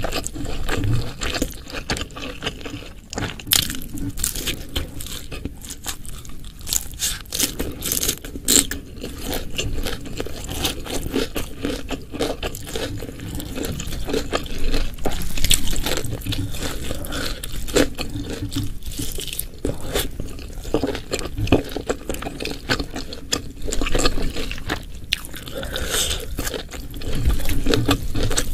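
Close-miked eating sounds: a person chewing and biting into food, with irregular crisp crunches and wet mouth sounds throughout.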